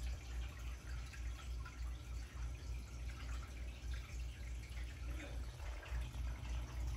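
Aquarium filter running: water trickling and dripping, over a low hum.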